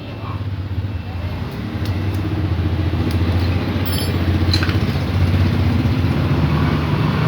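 A small motorcycle engine running steadily, its low hum growing gradually louder.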